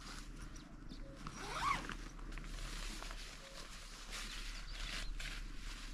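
Nylon fabric of a dome tent rustling and crinkling as it is handled during pitching, in uneven short scrapes. About a second and a half in comes a short high chirp-like sound.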